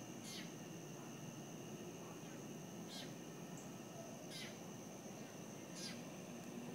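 A bird calling repeatedly, four short falling notes about a second and a half apart, over a steady high drone of insects.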